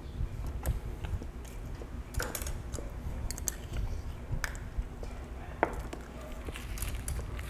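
White plastic spoon scraping and clicking against a small glass bowl as food is scooped out, with a few sharp clicks. Chewing and mouth sounds from eating run alongside.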